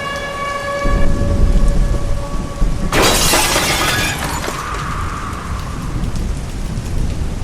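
Tornado storm: a steady siren tone ends within the first second, giving way to heavy wind buffeting and rain. About three seconds in there is a loud crashing rush of noise lasting over a second.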